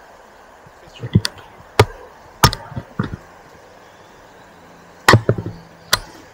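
About six short, sharp knocks at uneven intervals: four in the first three seconds, then two more near the end.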